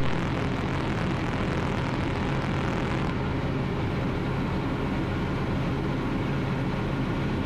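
Ultralight aircraft's engine and propeller running steadily in flight, an even drone heard from inside the cockpit.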